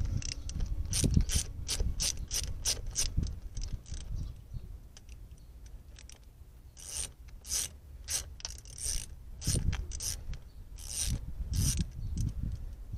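Socket ratchet clicking as the valve cover nuts of a Honda D15 engine are undone. A quick run of clicks, a pause of a couple of seconds, then slower clicks.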